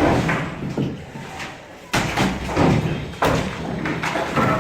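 Heavy thuds of hand demolition of a brick-and-concrete house: four impacts about a second apart or more, each followed by a short clatter of breaking and falling debris.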